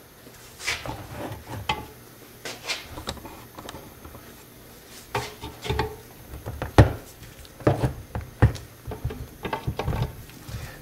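Irregular knocks, clinks and rubbing as the parts of an MBS Matrix Pro mountainboard truck are handled and worked in a bench vise, with a few sharper knocks in the second half.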